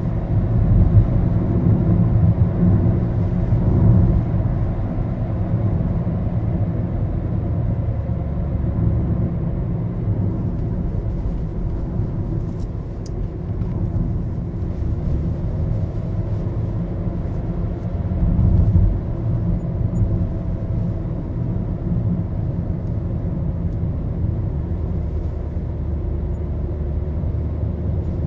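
Maruti Suzuki Baleno driving on the road, heard inside the cabin: a steady engine hum and low road rumble, which swells briefly a few times.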